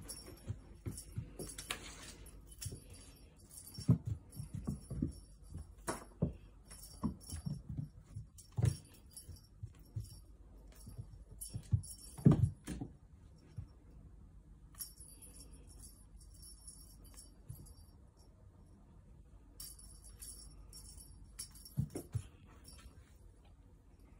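A small bell inside a cat toy jingling in short bursts as a kitten bats, carries and pounces on it, with soft knocks of paws and toy on a hard floor, the loudest about halfway through. The jingling stops for a few seconds at a time between bouts of play.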